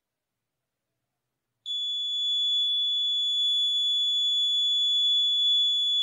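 Small piezo beep buzzer sounding one continuous high-pitched tone that starts suddenly about a second and a half in. A match flame has heated a fluorescent tube-light starter until its contacts closed, triggering this homemade fire alarm. It keeps sounding while the starter stays hot.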